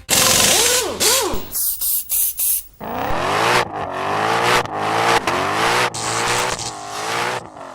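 A car driven hard: engine revving, its pitch sweeping up and down again and again, with a loud noisy burst at the start.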